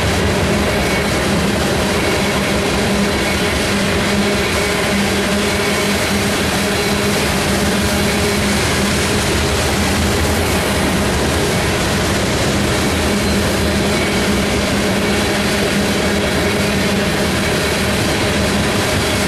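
Freight train of loaded covered hopper cars rolling steadily past, with a continuous noise of steel wheels on the rails.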